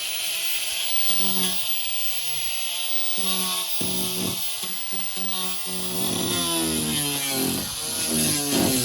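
Power tool cutting into the boat's floor, a steady hiss running throughout, under background rock music.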